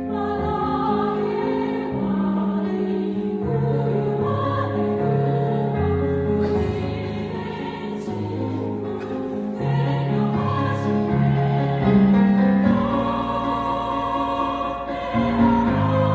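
Small church vocal ensemble singing a Christmas hymn in several-part harmony, with long held notes that change every second or two.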